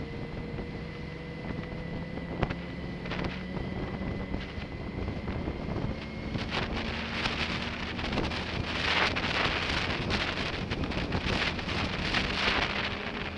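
BMW K1200S's inline-four engine running steadily at low road speed, heard from a camera mounted on the motorcycle. Wind buffets the microphone, growing stronger in the second half.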